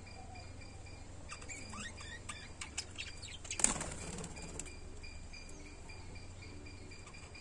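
Pair of lovebirds: a run of short, quick rising chirps, then a brief burst of wing flapping about three and a half seconds in.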